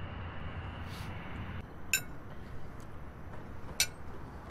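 Low steady background noise, then two sharp clinks of china, about two seconds apart.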